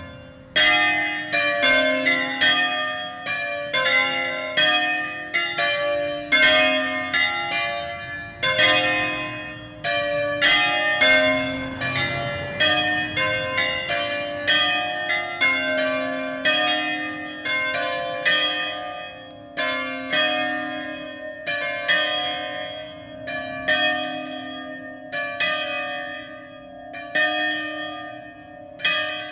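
Four 1928 Angelo Bianchi bronze church bells, tuned C, D, E-flat and F, ringing a full-swing Ambrosian peal (distesa) on their wheels. The strokes fall unevenly and overlap, a little over one a second, each tone ringing on into the next.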